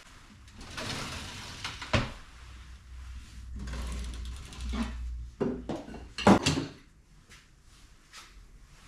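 Tools and parts being handled and rummaged through: rustling and scraping, a sharp knock about two seconds in, and a louder clank a little past six seconds.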